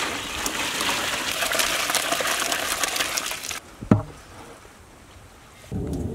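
Hot spiced brine poured in a heavy stream from a large pot over a tub of raw whole chickens, a steady gushing splash that stops abruptly about three and a half seconds in. A single sharp knock follows just after.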